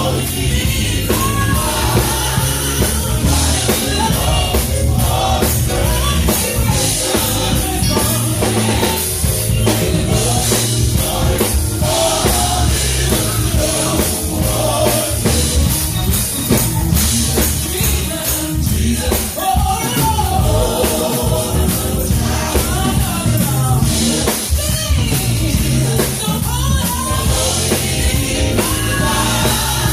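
Live gospel music: a lead vocal over a band with drum kit and bass.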